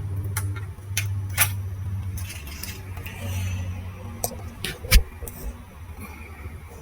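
Scattered light clicks and clatter of small hard laptop parts being handled, with a louder low thump about five seconds in, over a low hum that fades early.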